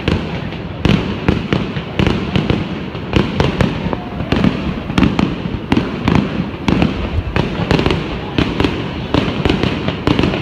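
Aerial fireworks shells bursting in quick succession: a dense run of bangs and crackles, several a second, over a continuous rumble.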